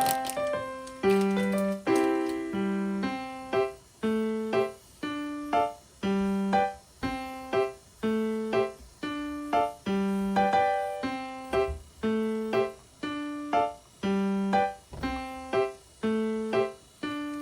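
Background music on a piano-like keyboard: a steady, repeating pattern of struck notes, with a bass note on each beat and higher notes between.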